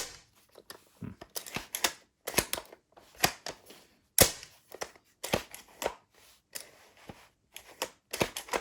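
Bolt-action spring airsoft rifle, a Specna Arms Core M40-style, being worked by hand: a run of sharp plastic-and-metal clacks from the bolt and the trigger. The loudest snap comes right at the start and another about four seconds in.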